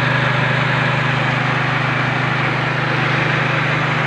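KD 820 Pro mini rice mill running steadily under load, milling paddy: a constant low machine hum beneath a dense rushing noise of grain moving through the huller and polisher.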